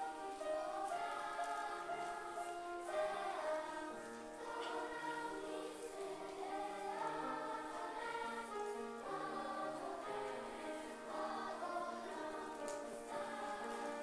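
Children's choir singing together, holding long notes that move from pitch to pitch.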